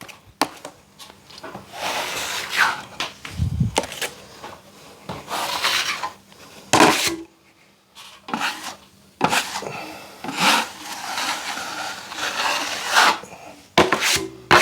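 Plastering blade scraping and spreading plaster compound across a drywall ceiling patch, in a run of short strokes about one a second.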